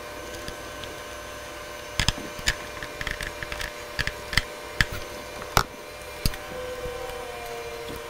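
A metal hand tool clicking and tapping against a bolt as a wiring harness ground wire is fastened to the ground strap: about ten sharp, irregular clicks over four seconds, starting about two seconds in.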